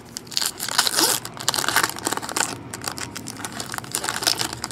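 Crinkling and rustling of a foil trading-card pack wrapper being torn open and handled, with irregular sharp crackles.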